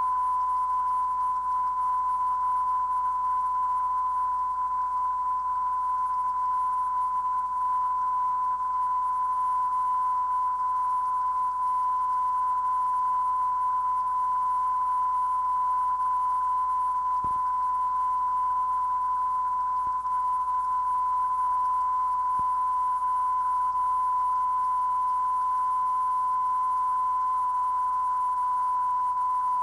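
Long, unbroken beep recorded at the end of a VHS tape: one steady tone that holds the same pitch and level throughout, over faint tape hiss.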